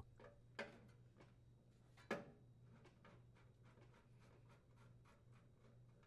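Near silence with a few faint metal clicks, the clearest about half a second and two seconds in: a small screw being set and turned by hand and screwdriver to fasten a grounding wire to a microwave's sheet-metal base.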